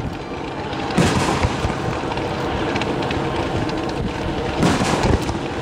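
Aerial fireworks display: two heavy shell bursts boom, one about a second in and a longer one near the end, over a steady rumbling wash of noise.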